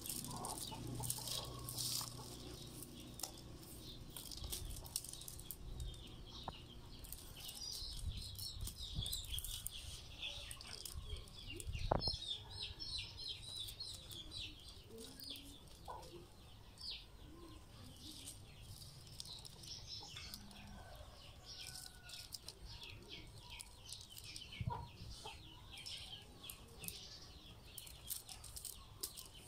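Dry rattan strips rustling, clicking and scraping against one another as they are bent and woven by hand, with one sharp knock partway through. Chickens cluck in the background.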